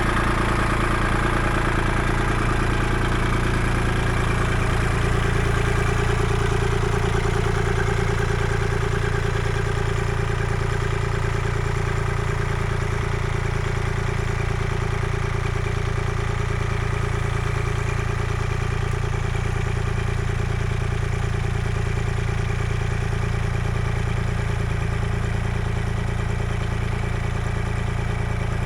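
Kubota L2501 compact tractor's diesel engine running steadily at an even speed.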